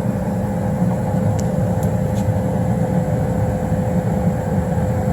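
Newly installed 90% gas furnace running, its blower moving air with a steady low rushing hum and a faint steady tone above it, while its static pressure is being checked.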